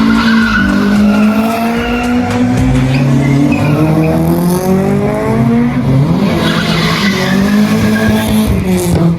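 A car's engine held at high revs with its tyres squealing and skidding, the pitch wavering and drifting slowly up and down, as in a burnout or drift.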